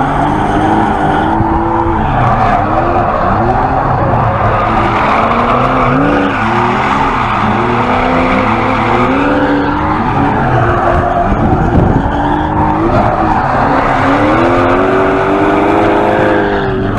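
BMW E46 Compact drift car heard from inside the cabin, its engine revving up and down again and again while the tyres squeal and skid through a drift.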